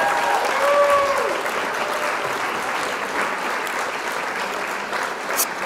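Applause: dense, steady clapping that slowly fades toward the end, with a few gliding pitched cries in the first second.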